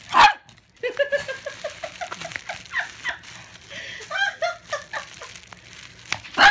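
A pug barking in short, loud barks, one just after the start and another at the end, with a run of quick, repeated short vocal sounds between them. The dog is upset by bubble wrap being crinkled.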